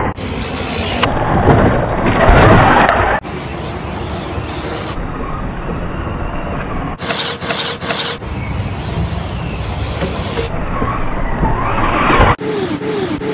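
Radio-controlled rally car driving on gravel and dirt: tyres scrabbling and the motor running, in short spliced takes that cut off abruptly, with the motor rising in pitch once near the end.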